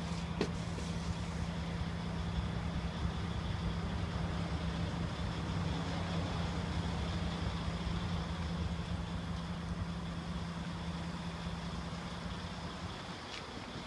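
Heavy truck diesel engine idling: a steady, even low drone that eases off near the end.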